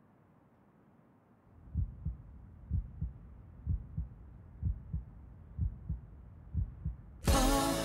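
A heartbeat sound effect: low, slow thumps about once a second, coming in after a second or so of near silence. Music cuts in suddenly near the end.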